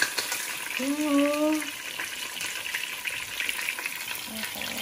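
Whole fish shallow-frying in hot oil in a pan, a steady sizzle with crackling. About a second in, a short drawn-out voice sound rises over it.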